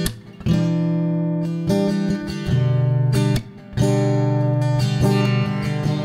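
Background music: an acoustic guitar strumming sustained chords, with two short breaks between phrases.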